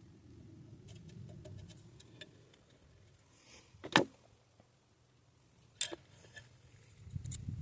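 Sparse small clicks and taps of pistol parts and tools being handled at a workbench, with one sharp click about four seconds in and another a couple of seconds later. Handling and rustling grow louder near the end.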